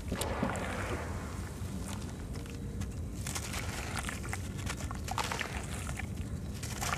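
Hands squishing and sloshing wet sand-cement in a tub of water, then gritty crackles as a dry sand-cement block is crumbled and rubbed apart into the water. A steady low hum runs underneath.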